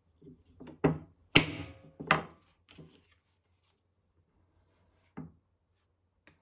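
Carved wooden kömbe cookie mould knocked against a wooden cutting board to release the pressed cookie: three sharp wooden knocks close together about a second in, the middle one loudest, then a few lighter taps.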